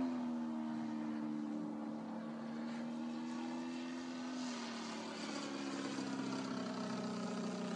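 Sebart Su-29 RC aerobatic plane's DLE-55 single-cylinder two-stroke petrol engine and propeller running steadily in flight. Its pitch drops a little right at the start and again about four and a half seconds in.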